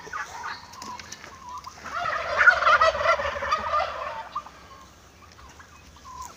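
A loud, rapid, rattling call from backyard poultry, starting about two seconds in and lasting some two and a half seconds, with fainter short calls before and after it.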